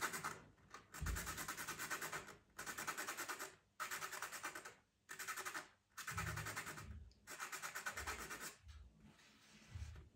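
A pastel pencil being sharpened: rapid scratchy strokes in repeated bursts of about a second each with short pauses between, fading near the end.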